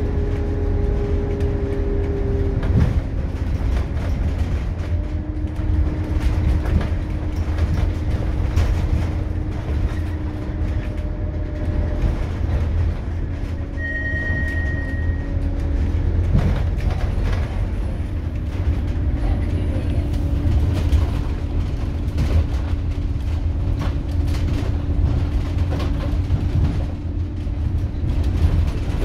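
Scania K280UB city bus with a ZF Ecomat automatic gearbox, heard from inside the passenger cabin while driving: a steady low engine and road rumble with a drifting drivetrain hum and frequent small rattles of the interior. A brief high beep sounds about halfway through.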